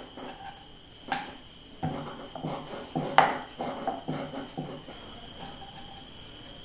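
Wooden rolling pin rolling poori dough on a wooden board: a run of soft, repeated rolling strokes with a couple of sharper knocks of the pin, about a second in and about three seconds in, the strokes stopping shortly before the end.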